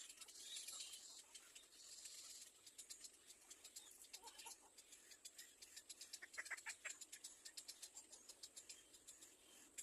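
Faint, rapid high-pitched chirping of nestling birds, with a few short, louder calls about four and six and a half seconds in.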